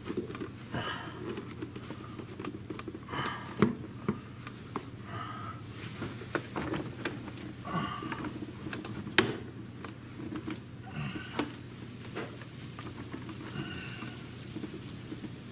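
Scattered small knocks, clicks and rustles of plastic air-box parts, rubber boot and hoses being handled and pushed into place on an ATV, with a person breathing every few seconds over a steady low hum.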